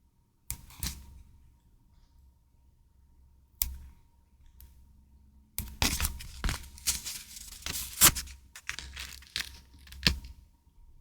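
Paper handled by hand: a few sharp taps and rustles, then several seconds of tearing and crinkling starting about halfway through.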